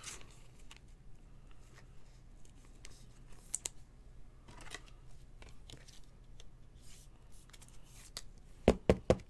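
Trading cards being handled: faint rustling, scraping and small clicks as cards are moved and slid. Three sharp knocks in quick succession near the end.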